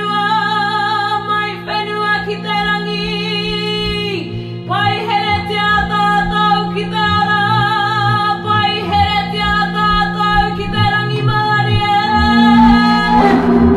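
Music with a voice singing long, wavering notes in Māori over a steady low drone.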